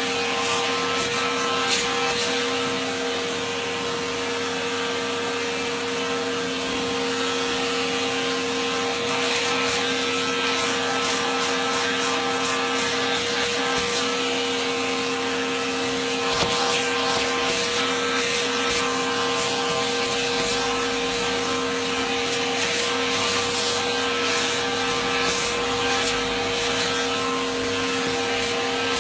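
Garment thread-trimming machine running: its suction motor gives a steady hum with a constant tone under a hiss, while its two cutting heads make irregular scraping and rubbing sounds as fabric is worked over them to cut loose threads.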